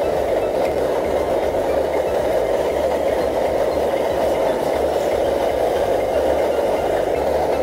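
MSR Dragonfly liquid-fuel stove burning gasoline under a steaming pot, giving a loud, even rushing noise.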